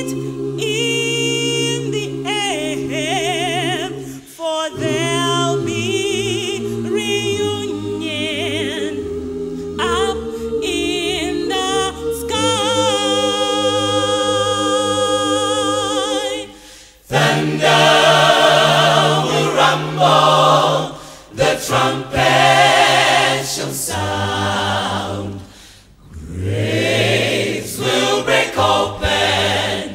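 Gospel choir singing, with a woman's lead voice running in wavering, ornamented lines over sustained choir harmonies. About halfway through, the full choir comes in louder in short phrases separated by brief breaks.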